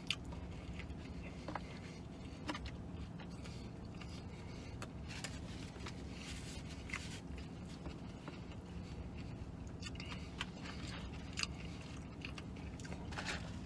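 Chewing, with scattered soft clicks and rustles of a paper food carton being handled, over a steady low hum in the vehicle cab.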